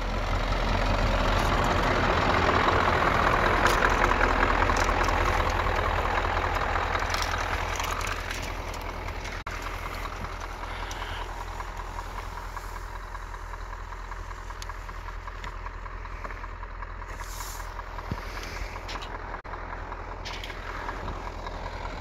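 Snow plough truck's engine running with a steady low rumble. For the first eight seconds or so a loud rushing noise rides over it, then it settles to a quieter, steady engine sound.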